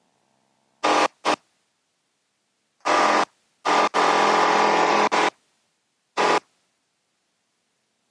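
Cockpit intercom's voice-activated squelch cutting in and out in seven short, abrupt bursts, each letting through loud engine drone and airflow noise from the light aircraft's cabin, with nothing heard in between.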